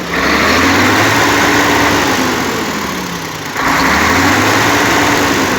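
Mercedes-Benz Actros truck's diesel engine revved twice, the engine note climbing and then easing back each time, the second rev starting about three and a half seconds in. After remedies for knocking and blowby it runs smoothly, back to normal.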